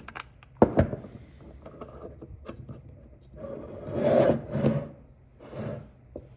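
Hands working on engine parts: a sharp click about half a second in, then rubbing and scraping of metal parts being handled, loudest a little past the middle.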